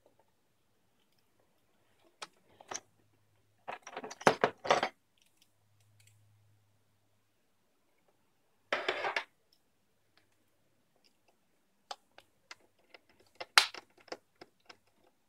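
HP Pavilion dv6 laptop's plastic screen bezel being pried off the lid: scattered clicks and cracks as its clips snap free, a busy cluster about four seconds in, a short scrape near nine seconds, and one sharp snap near the end.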